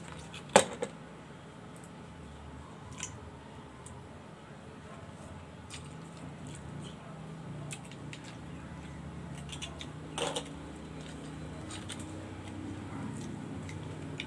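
Hard clicks and clacks of boiled scallop shells and a metal spoon being handled over a wok and metal bowl while eating. A sharp click about half a second in is the loudest, with a double click about ten seconds in.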